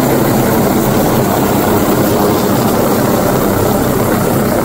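Helicopter passing low overhead, its rotor and engine noise loud and steady.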